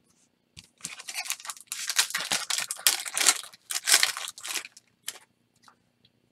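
A foil trading-card pack wrapper being torn open and crinkled by hand, a run of crackling rips lasting about four seconds, followed by a couple of light clicks.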